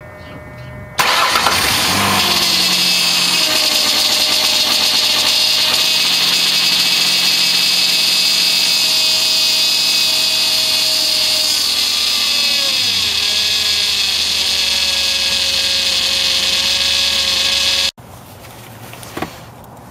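Ford Escape engine running loudly with a strong high-pitched whine over it. It comes on suddenly about a second in, and its pitch sags slightly past the middle. It cuts off abruptly near the end, and a single click follows.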